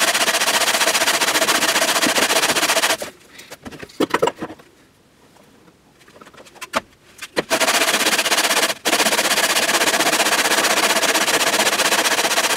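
Steady rasping of sanding on a spruce cello top, stopping about three seconds in; a few knocks of the tool and wood sound in the few seconds of near quiet, then the sanding starts again.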